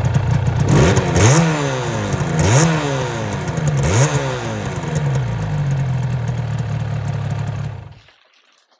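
Motorcycle engine revved in three quick blips, its pitch climbing sharply each time, then settling to a steady idle before stopping abruptly about eight seconds in.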